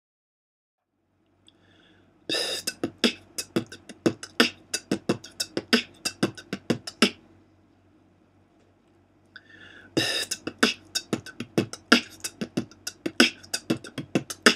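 Beatboxing: a quick beat of mouth-made bass kicks, hi-hats and rim shots, played as two phrases of about five seconds each with a short pause between.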